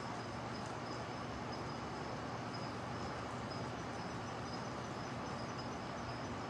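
Steady outdoor ambience: an even hiss with a faint, high-pitched chirp repeating about three times a second.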